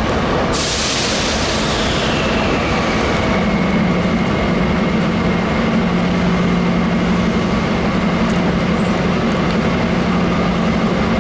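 Diesel passenger locomotives running in a train shed, a loud steady engine rumble. About half a second in a sudden hiss starts and settles into a steady high whine, and a deeper steady tone joins about three seconds in.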